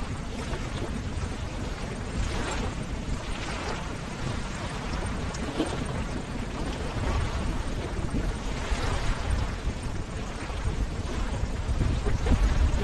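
Ocean waves: a continuous rumbling wash of surf that swells in surges every few seconds and grows louder near the end.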